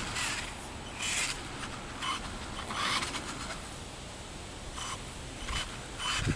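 1/16 Traxxas Revo VXL radio-controlled car driving in short spurts, with about six brief scraping noises as it moves over the ground.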